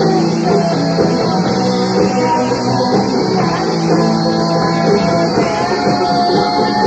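Live rock band playing loud and steady: electric guitars, bass guitar and drum kit.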